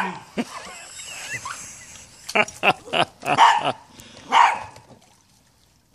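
Small dog barking in short, sharp yaps: one bark at the start, then a quick run of barks about two seconds in and two more, spaced out, before it falls quiet.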